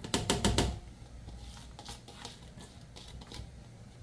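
Chopped onions tipped from a plastic bowl into an empty stainless steel pressure cooker: a quick clatter of pieces landing on the metal in the first second, then a few faint taps.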